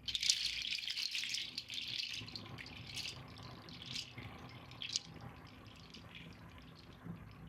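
Fullmoon rotating chime giving a soft, shimmering rush of tiny tinkles, with a few brighter strikes standing out about three, four and five seconds in, then fading away.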